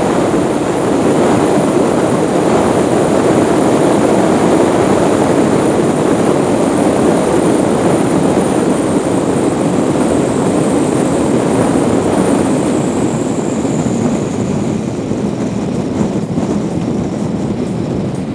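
Steady road and engine noise of a car being driven, heard inside the cabin, easing slightly near the end.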